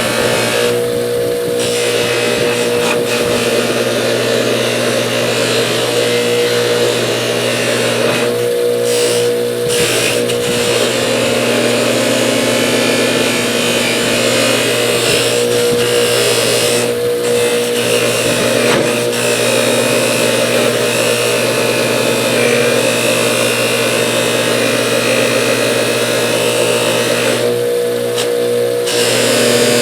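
Electric polishing machine running steadily, a metal ratchet part held against its spinning wheel. A constant motor hum under a dense hiss that eases off briefly about four times.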